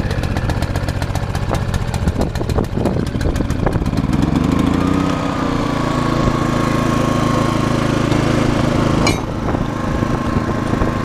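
Honda inverter generator's small engine running just after a pull start: at first it runs with a fast, even ticking, then about four seconds in its pitch rises and it settles into a steady hum. A short sharp click near the end.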